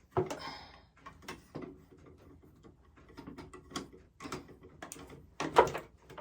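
Irregular small clicks and knocks of ring light parts being handled and fitted together during assembly, with one louder knock about five and a half seconds in.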